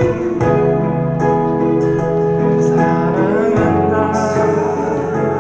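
A wedding song with instrumental accompaniment, guitar among the instruments, playing on between sung lines.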